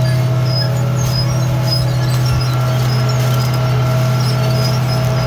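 A large farm machine's diesel engine running steadily under load, a constant low drone. Faint short high chirps sound over it.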